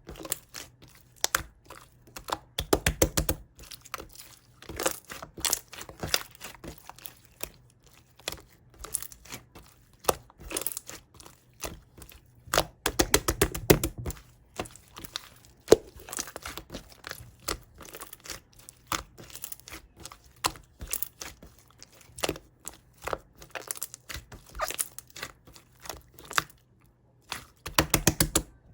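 Close-miked eating of raw whole honeycomb: irregular sharp crackles and sticky clicks from the wax comb, in denser runs a few seconds in, midway, and near the end.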